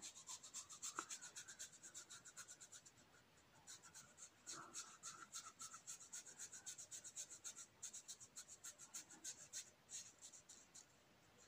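Faint, quick rubbing strokes of fingers smoothing a cloth waxing strip onto a waxed upper lip, several strokes a second with a short pause about three seconds in.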